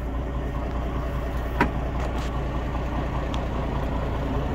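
An engine idling steadily, a low even hum, with one short click about one and a half seconds in.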